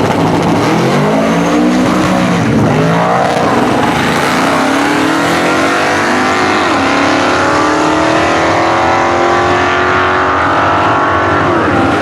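Supercharged 540 big-block V8 of a Chevy Nova drag car, loud throughout. It revs in a few quick rises and falls, then climbs steadily in pitch for several seconds, with one sudden drop just past halfway, like a gear change.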